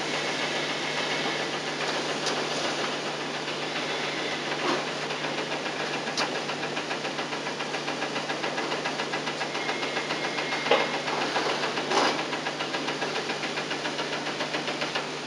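Steady hiss and low hum from a digitized VHS tape soundtrack, with a fast, even flutter in the hiss and a few faint clicks.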